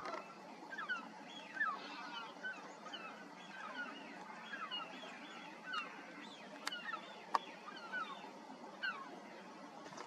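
Many wild birds calling together, a busy stream of short falling notes overlapping one another, with two sharp clicks a little past the middle.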